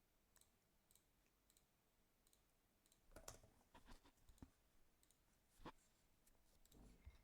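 Near silence with faint computer mouse clicks: a few scattered clicks, a quick run of them about three to four and a half seconds in, and one more near five and a half seconds.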